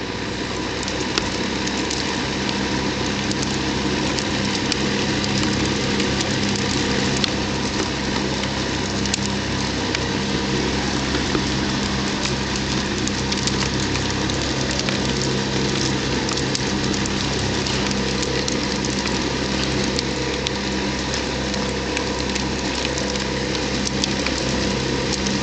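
Electric fan of a homemade tornado machine running steadily with a constant motor hum, coming up to speed at the start. Scraps of paper tick and rattle lightly as the air swirls them around the box.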